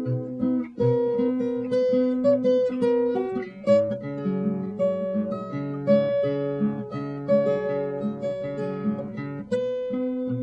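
Acoustic guitar music: a run of plucked notes over a line of lower bass notes.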